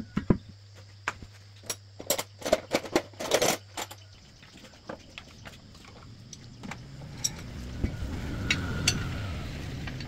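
Steel tire-changing tools and rim clinking and knocking in a quick string of sharp metallic hits, then a low rumble that swells and fades near the end, with a few more clinks.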